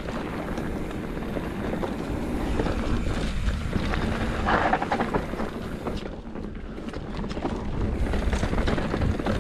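Mountain bike riding a rough, rocky trail: wind buffeting the microphone over a continuous rumble of tyres on stony ground, with frequent sharp rattles and knocks.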